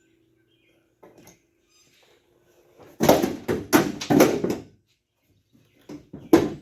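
Loud clunks and rattles of loose metal door hardware being handled inside a truck's steel door. A cluster of them starts about three seconds in and lasts about a second and a half, followed by one sharp knock near the end.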